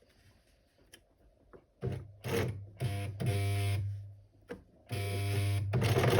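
Electric sewing machine stitching in short runs of about a second each, starting and stopping four times, with a few light clicks in the quiet first two seconds.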